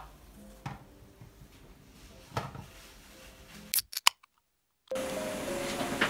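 A few faint, sharp plastic clicks and taps as a turtle-shaped insect-repellent hanger is handled and hung on a hook. Then a moment of dead silence, and soft background music starts about five seconds in.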